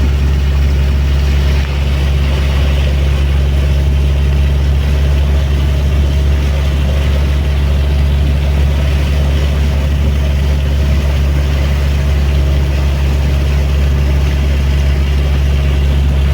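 Boat engine running steadily under way, a loud, low, unchanging drone with a few steady tones above it.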